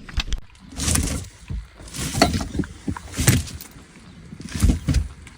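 Handling noise on a small fishing boat: irregular knocks and rustles, about one a second.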